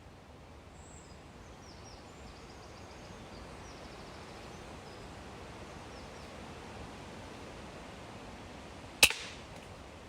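A single shot from a sub-12 ft-lb .177 air rifle about nine seconds in: one sharp crack with a brief ringing tail. Before it, a faint steady outdoor background with a few small bird chirps.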